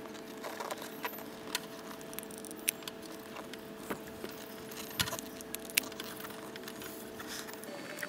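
Scattered light clicks and ticks of a corded hot glue gun being handled and worked along a silicone LED diffuser strip, over a steady faint hum that stops near the end.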